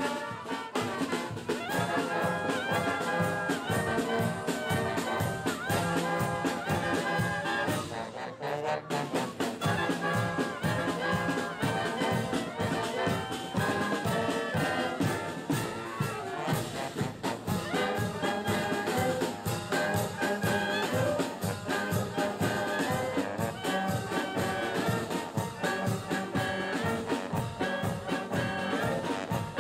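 Wind band playing a lively tune: clarinets, trumpets, trombones, saxophones and a sousaphone over a steady bass drum beat. The music briefly drops back about eight seconds in.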